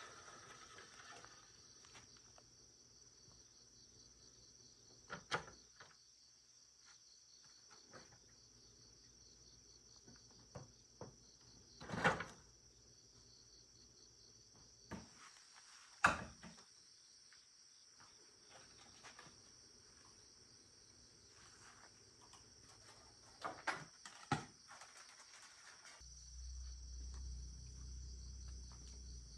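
Faint, steady high-pitched chirring of insects, broken by a handful of sharp knocks and clanks, the loudest about 12 and 16 seconds in. A low hum comes in near the end.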